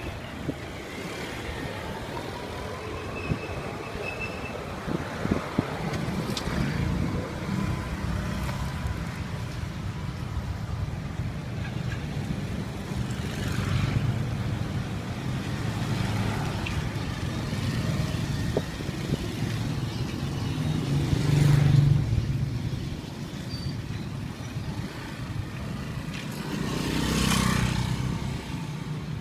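Street traffic: a steady low rumble of motor scooters, tuk-tuks and cars, with vehicles passing more loudly about two-thirds of the way through and again near the end.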